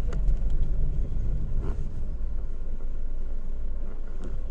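Low, steady rumble of a car engine at idle and crawl, heard from inside the cabin in slow traffic.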